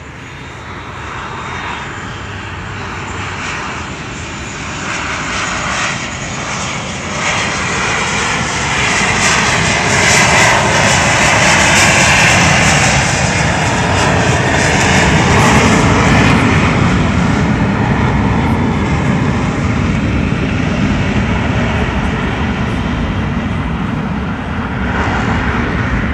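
Blue Angels F/A-18 Hornet jets making a low pass. Their engine roar builds over about ten seconds and peaks with a whine that bends in pitch as they go by, then stays loud.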